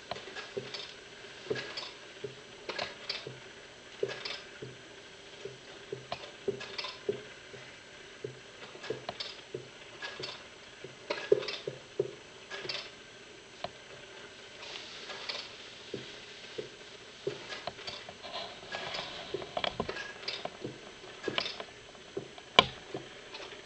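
Schoenhut clockwork living-picture automaton running, its wind-up mechanism and moving figures giving irregular light clicks and taps, one or two a second, with a sharper, louder click near the end.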